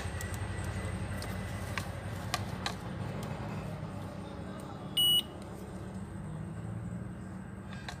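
A digital multimeter gives one short, high beep about halfway through. This happens during a continuity check of the phone's backlight lines. Under it are a steady low hum and a few faint handling clicks.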